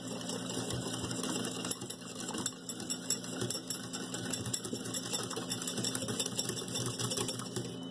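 Wire balloon whisk beating milk and filling powder in a glass bowl: a rapid, steady clicking of wire against glass.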